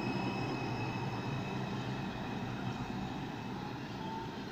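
New York City Subway R142 train pulling away from the station and receding down the track, its running noise slowly fading, with a steady high-pitched whine held through it.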